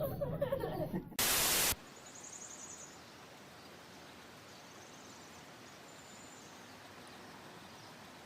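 A short, loud burst of static about a second in, lasting about half a second, then a faint steady hiss.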